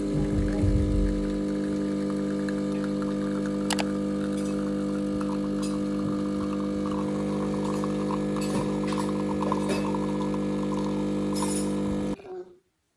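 Steady electric hum of a running household appliance, with a few faint clicks and clinks over it. It cuts off abruptly about twelve seconds in.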